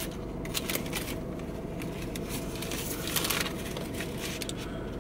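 Paper fast-food sandwich wrapper crinkling and rustling in uneven spells as it is folded back from the sandwich.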